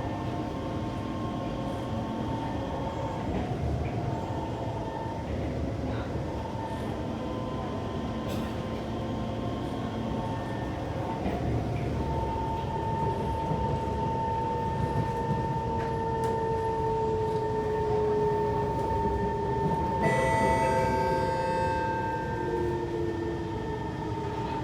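Inside a Kawasaki C151 metro car: the rumble of wheels on track under the traction motors' whine. A steady high whine sets in about halfway, and a lower motor tone falls slowly as the train slows, with a burst of extra high tones near the end. The motor noise is the loud, rough sound that the uploader judges a bad motor.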